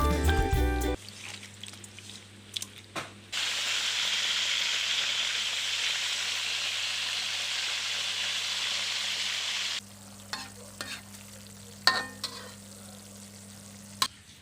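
Food sizzling in hot oil in a pan: a loud, steady sizzle starts about three seconds in and cuts off suddenly near ten seconds. A few clicks and taps of a utensil come before and after it.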